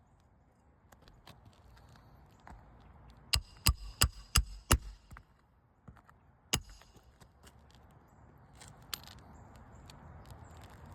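Hammer driving roofing nails into an asphalt shingle: five quick, sharp ringing strikes, then one more about two seconds later, with faint scraping and rustling between.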